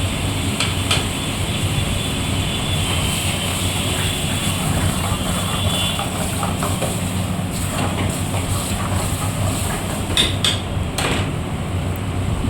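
A steady low rumble of kitchen and street noise, with a few sharp clinks of a metal ladle against the cooking pot: two about half a second and one second in, and two more near the end.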